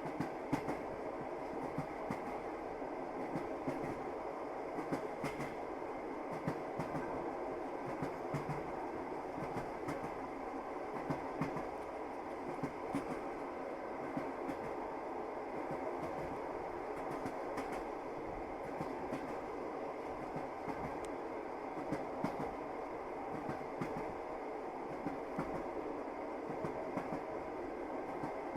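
Passenger train running, heard from inside a carriage: a steady rumble of the wheels on the rails with irregular clacks and knocks as the wheels pass over rail joints.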